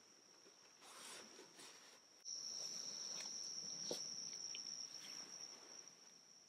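An insect's steady high-pitched buzz on one even tone, coming in suddenly about two seconds in and fading out near the end. Faint rustles and a light knock or two of handling are heard under it.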